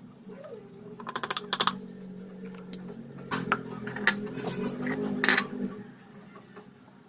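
Quick runs of light clicks and rattles from handling the plastic parts of an AeroPress coffee maker, over a low steady hum that fades out near the end.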